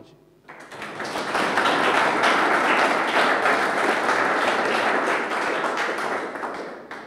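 Audience applauding: many hands clapping together, swelling about half a second in and dying away near the end.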